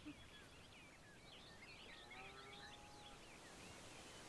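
Faint outdoor ambience of small birds chirping and twittering, with one longer held tone about two seconds in.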